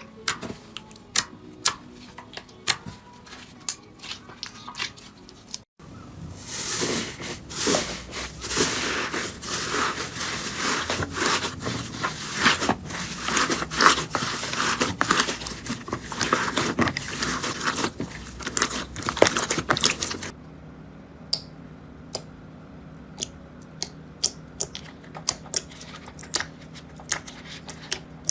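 Slime being squeezed and pressed by hand: sparse sticky clicks and pops at first, then a dense run of crackling and crunching from about six to twenty seconds in, then sparse pops again.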